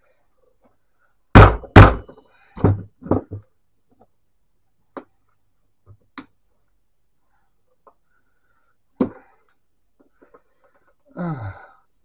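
Thunks and knocks on the metal frame of a Smith-Corona electric typewriter as it is taken apart: two heavy thunks about half a second apart, then three lighter knocks, then a few single clicks of metal parts.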